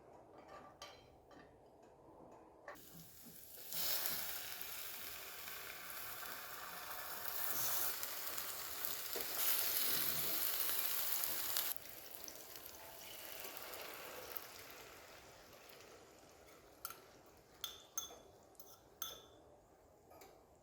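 Food sizzling in a hot frying pan: the hiss starts a few seconds in, grows louder, drops off abruptly about halfway through, then carries on more quietly. A few light clicks come near the end.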